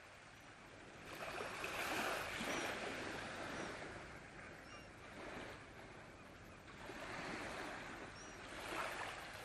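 Small waves lapping and washing up on a sandy shore, swelling and falling back twice, with a few faint high peeps over the top.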